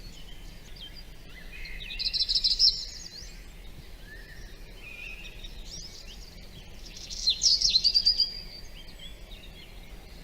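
Several wild songbirds singing in woodland, with many small chirps throughout. Two loud bursts of fast, rapidly repeated song notes stand out, about two seconds in and about seven seconds in.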